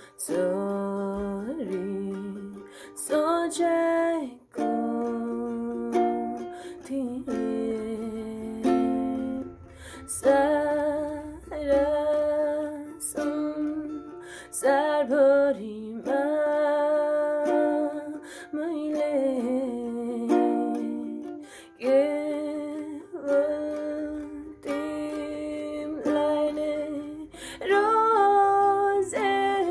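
Ukulele strummed in repeated chords, with a voice singing the melody along with it.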